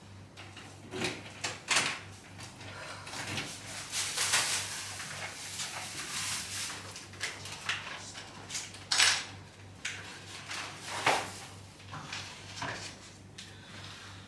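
Household handling noises: a door handle and latch clicking, a plastic grocery bag rustling, and kitchen cupboard doors opening and shutting in a string of sharp clicks and knocks.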